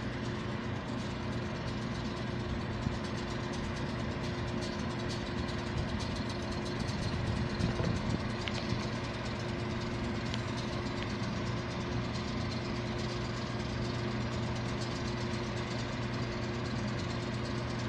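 Diesel locomotive engines of a Norfolk Southern SD60E and the NS 38 research unit running, a steady low drone with a constant tone, swelling slightly about seven seconds in.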